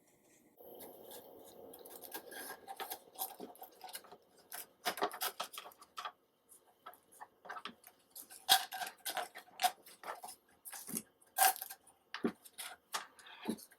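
Wooden sticks being pushed through the holes of a seed-coated cardboard paper towel tube: irregular clicks, taps and rustling as the sticks, seeds and cardboard are handled.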